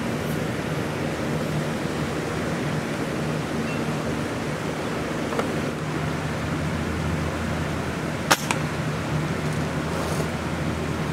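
A single sharp shot from a .177 Ruger Air Hawk break-barrel spring-piston air rifle about eight seconds in, over a steady outdoor rumble with a low hum.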